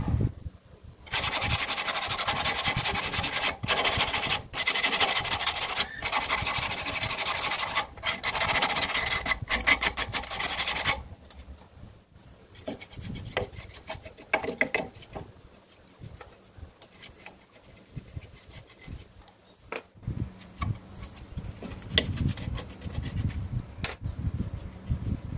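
Loud abrasive scraping on wood, working a turned wooden piece in strokes with short breaks, for about ten seconds; it stops about eleven seconds in, leaving quieter scattered rubbing and light knocks as the piece is handled.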